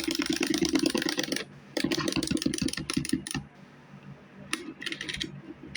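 Rapid crackling and rustling of items being handled and packed, in two long stretches over the first three and a half seconds and a shorter one near the end.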